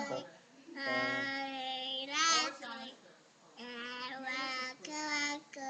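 A young child singing in a high voice, holding long notes in about three phrases, with a sliding rise and fall in pitch a little after two seconds.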